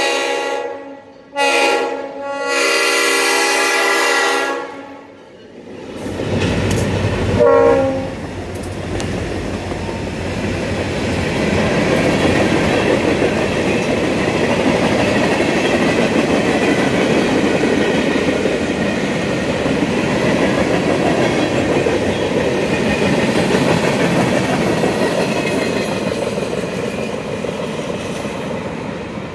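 Diesel freight locomotive's air horn blowing a long blast, a short one and a final long one, the close of a grade-crossing signal. About six seconds in the locomotive passes, and a long string of boxcars rolls by with steady rumbling and wheels clattering over the rail joints.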